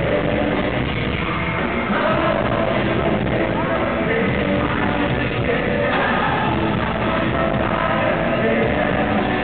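Live band music with a male singer, loud and steady.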